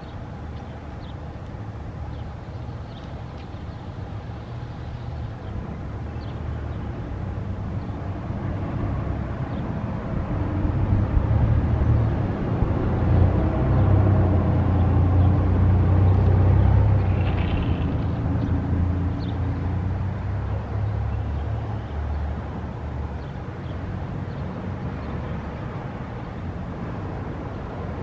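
Low rumble of passing road traffic, swelling to a peak in the middle and then slowly fading away.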